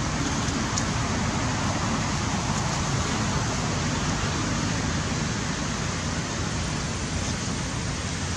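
Steady rushing background noise with a low rumble underneath, unchanging throughout.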